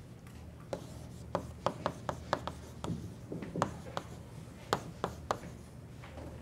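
Chalk writing on a chalkboard: irregular sharp taps and short scratching strokes as the letters are formed, over a steady low hum.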